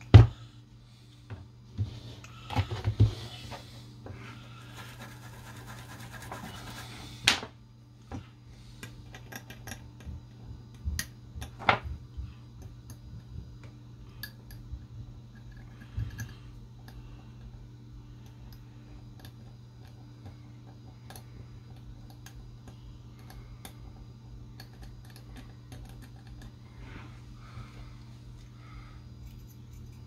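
Workbench handling and cleaning sounds: a sharp click as a plastic bottle is handled, a few seconds of scratchy rubbing that ends in a sharp tap, then soft scratching and small taps as a toothbrush scrubs a circuit board clean of solder flux. A steady low hum runs underneath.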